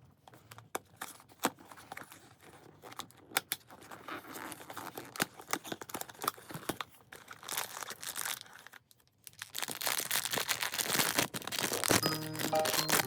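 Crinkly packaging being handled and torn open: scattered crackles and clicks, thickening into dense, continuous crinkling about ten seconds in. Background music with a melody comes in near the end.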